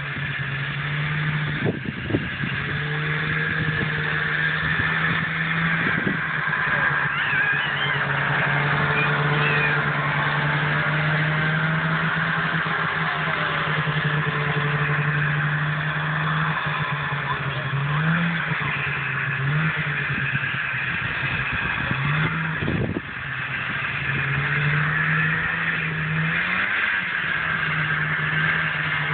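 Snowmobile engine running with a steady drone, its pitch rising briefly several times in the second half as the throttle is opened.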